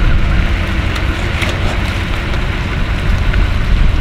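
Steady wind and road noise with a low engine rumble, picked up by a camera mounted on the outside of a Chevrolet Silverado 3500 Duramax diesel pickup as it tows a travel trailer slowly along a paved drive.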